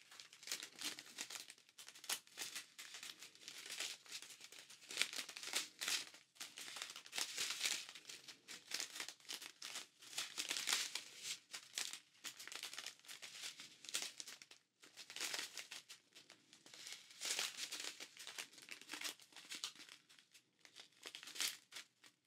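Small plastic bags of diamond-painting drills crinkling as strips of them are handled and turned over. The crackles are soft and come in irregular spurts with short pauses.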